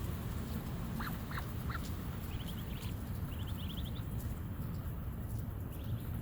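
Ducklings peeping in quick runs of short, high notes, with a few lower duck calls about a second in, over a steady low background rumble.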